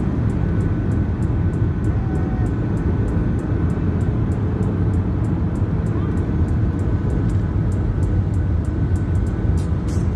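Steady cabin noise inside a Boeing 737 in descent: a low rumble of engines and rushing air, with a faint steady whine above it.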